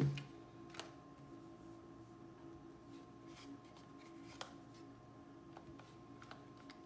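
A few scattered small clicks and taps, the sharpest right at the start, over a steady low electrical hum.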